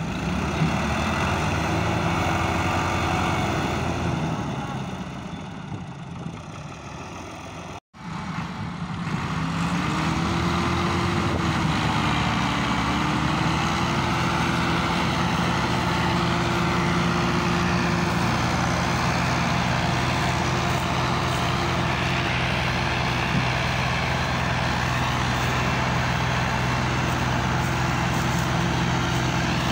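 Diesel tractor engines running hard under heavy load while hauling an overloaded trolley. After a brief dropout about eight seconds in, a pair of Massey Ferguson tractors drone steadily; their pitch dips and rises, then holds.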